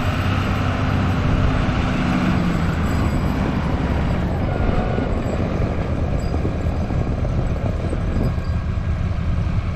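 Heavy-equipment diesel engines running, a steady low drone whose even hum loosens into a rougher rumble about three seconds in.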